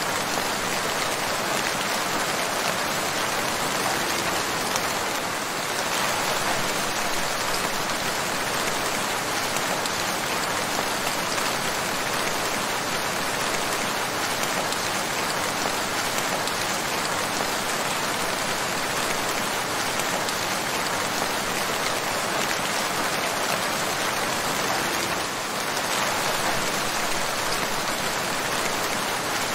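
Steady rain falling, an even wash of many drops with no single impacts standing out.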